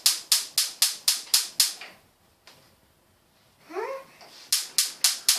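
Gas hob spark igniter clicking rapidly, about three clicks a second, stopping for a couple of seconds and then clicking again near the end. A short rising vocal sound comes in the pause.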